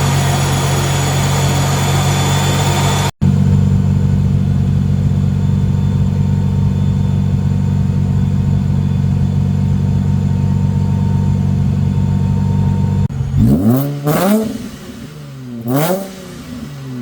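Supercharged Nissan 350Z V6 idling steadily, then revved twice near the end, the pitch climbing and falling back each time. The sound cuts out for a moment about three seconds in.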